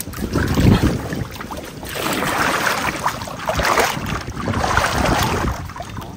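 Water sloshing and splashing in floodwater, in surges about a second apart, as of someone wading or moving through it.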